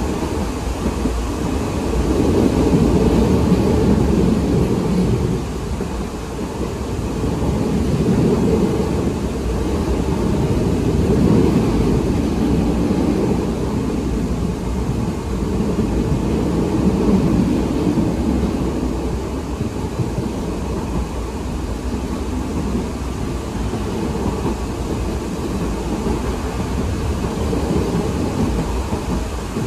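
Interior running noise of a 2023 Siemens LRV4 light-rail car under way: a steady low rumble that swells and eases several times.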